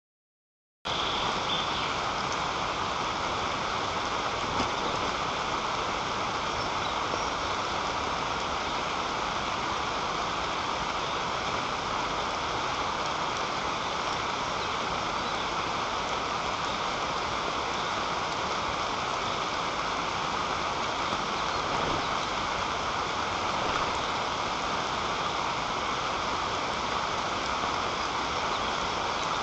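Steady rain falling, an even hiss that starts about a second in and stays level.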